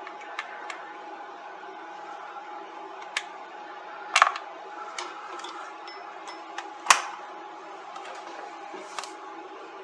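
A few scattered sharp clicks and taps from a hot glue gun being worked over a circuit board, the loudest about four and seven seconds in, over a faint steady hum.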